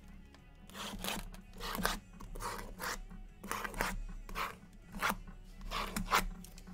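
Cardboard trading-card boxes being handled and stacked, rubbing and sliding against each other in a quick series of short scraping swishes, about two a second.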